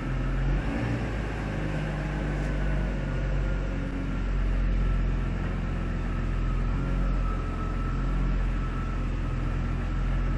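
Jaguar XJ40 XJ6's straight-six engine running steadily at idle while the car creeps slowly backward and forward, heard in the echo of an underground car park.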